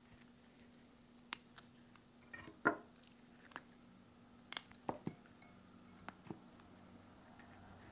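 Faint clicks and clinks of steel surgical instruments, a needle holder and thumb forceps, being handled while suturing. About ten small clicks are scattered through, the loudest a short rattle about a third of the way in.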